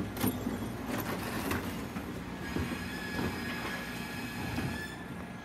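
Plastic wheelie bin being wheeled over paving, its wheels rumbling and knocking, with a steady high squeal joining about halfway through.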